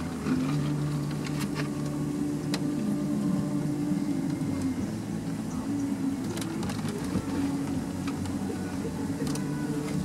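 Music playing on a radio, its notes changing every second or two, over a steady low hum.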